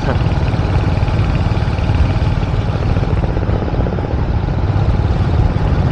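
Motorcycle riding along, a steady loud low rumble of engine and road noise with rapid even pulsing.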